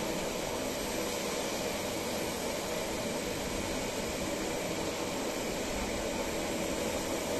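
Small twin-engine turboprop plane landing, heard from a distance as a steady, even engine hiss and drone that does not rise or fall.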